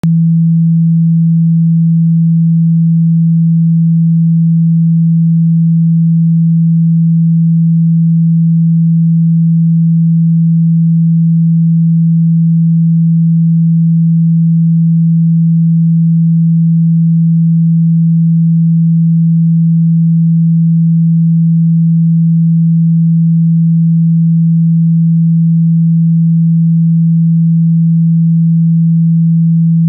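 A 165 Hz pure sine-wave test tone: one steady, loud, low pitch held unbroken and unchanging, with no other sound.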